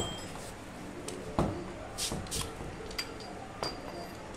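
A ratchet wrench and socket knocking and clinking against metal at a motorcycle engine's exhaust header: five or so short, sharp knocks spread over a few seconds, some leaving a brief faint ring.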